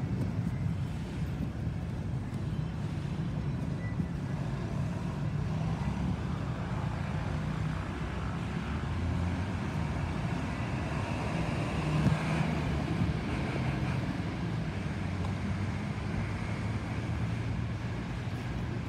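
Steady low rumble of road traffic, mixed with the distant engine noise of a jet airliner climbing out, which swells a little around the middle.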